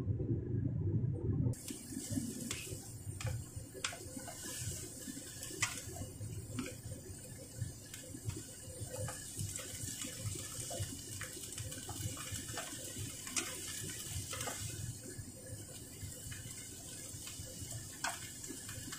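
Cauliflower and carrots sizzling and bubbling in a hot pan with a little water, a steady hiss broken by scattered knocks and scrapes of a wooden spatula stirring against the pan. It starts as a lower, muffled bubbling under the lid and changes abruptly to the brighter hiss after a second or two.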